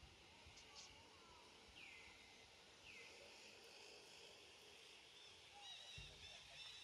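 Near silence: faint outdoor ambience with a few distant bird calls. There are two curved calls about two and three seconds in, then a run of short repeated chirps near the end, with a soft low thump about six seconds in.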